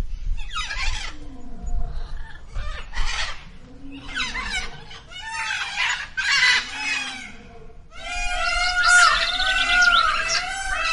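Domestic fowl calling: a string of separate squawks and clucks. About eight seconds in, a denser chorus of many overlapping, wavering pitched bird calls takes over.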